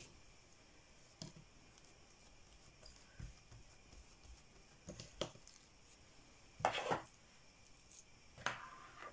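Faint, scattered soft pats and squishes of hands pressing soft yeast dough balls flat on an oiled table, with a spoon scraping filling from a plastic bowl near the end.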